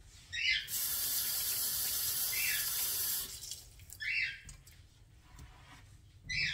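Kitchen sink tap turned on and running for about two and a half seconds, then shut off. Several short high-pitched squeaks come before, during and after it.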